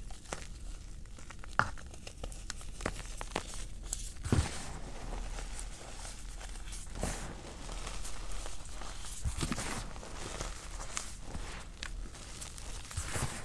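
Hands squeezing and crumbling crushed cornstarch and gym chalk powder: a dry, crunchy crumbling that swells and fades with each squeeze, with a couple of sharper cracks about one and a half and four seconds in.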